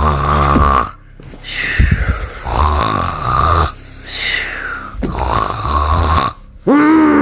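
Loud snoring from a sleeping person: about five rasping breaths, each close to a second long, some ending in a whistle that rises or falls. Near the end a loud drawn-out groan starts high and slides down in pitch.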